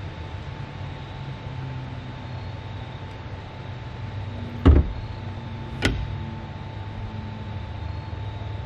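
Engine running steadily with a thin steady whine over its hum, and two sharp metal clanks about a second apart near the middle.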